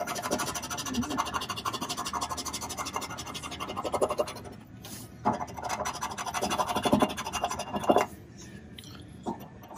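A round scratcher coin scraping the latex coating off a lottery scratch-off ticket in quick back-and-forth strokes. It comes in two long runs with a short break about halfway, and it goes quieter after about eight seconds as the winning numbers are uncovered.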